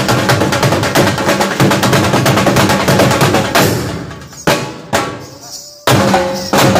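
Several dhols, Punjabi double-headed barrel drums, beating a fast, driving dhamal rhythm. About three and a half seconds in the stream of strokes breaks off into a few single heavy hits, then the fast drumming comes back near the end.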